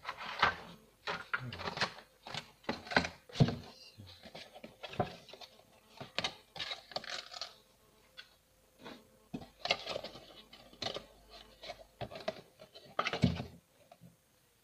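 Stiff clear plastic packaging tray crackling and clicking on and off as it is handled and the portable hard drive is taken out of it.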